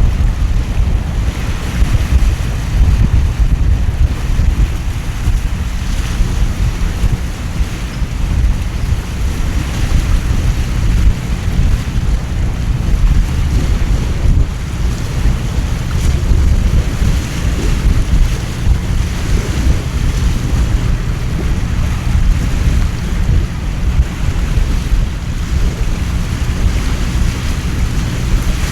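Storm wind and heavy rain over harbour water, steady throughout, with wind buffeting the microphone in a deep rumble.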